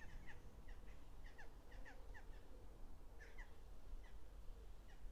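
Faint bird chirps: short, quick notes repeated irregularly over a low steady rumble.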